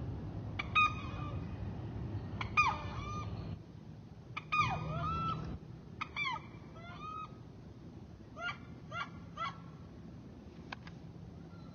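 Waterfowl calling: a series of short honking calls, many falling in pitch, some in quick runs of two or three, over the first nine or ten seconds.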